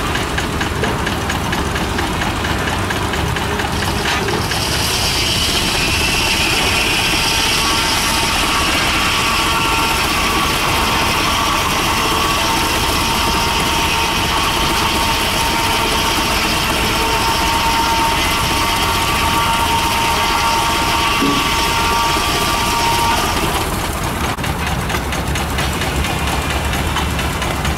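Belt-driven circular sawmill cutting a log: the blade's high whine and hiss start about four seconds in and stop a few seconds before the end. Under it the belted steam traction engine runs steadily throughout.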